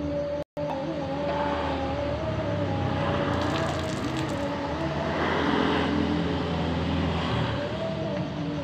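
A motor running steadily with a slightly wavering whine, with louder hissing rushes about three seconds in and again around five to six seconds.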